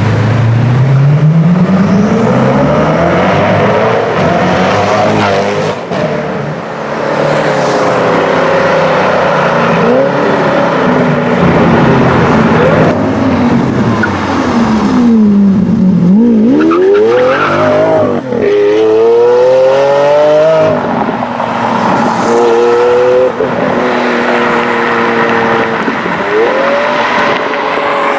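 Supercar engines, several in turn, revving and accelerating hard. The engine pitch climbs, drops and climbs again through gear changes, with a quick upshift just past the middle.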